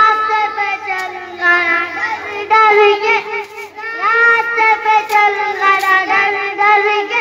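A young boy singing into a microphone, holding long drawn-out notes with short breaks between phrases.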